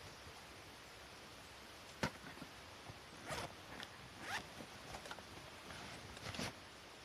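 A sharp click about two seconds in, then a zipper pulled in about five short strokes.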